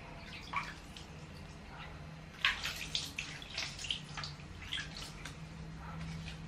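Hand-scooped water splashing onto a baby monkey's fur and dripping off onto a tiled floor. The splashes and drips are irregular and come thick and fast from about two and a half seconds in, over a low steady hum.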